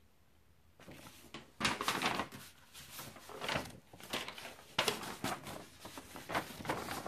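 Paper rustling as printed photos are handled, put down and picked up from a pile, in a string of short, irregular crinkles starting about a second in.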